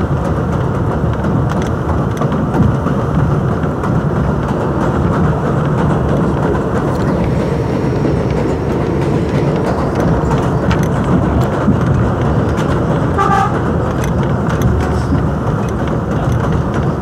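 R62A subway car in motion on elevated track, heard from inside at the front window: a steady, loud rumble of wheels on rails and running gear. A brief pulsing tone comes in about thirteen seconds in.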